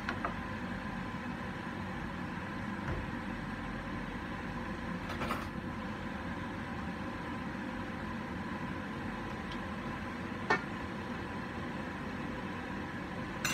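Steady rushing noise of a lit gas stove burner heating a wok. A light clatter comes about five seconds in and a single sharp knock about ten seconds in.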